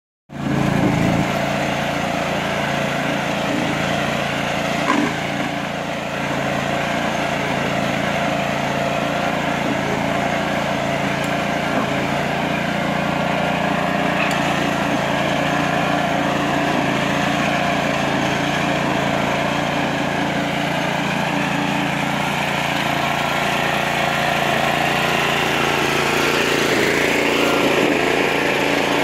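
Small engine of a self-propelled mower running steadily at constant speed, with one short knock about five seconds in.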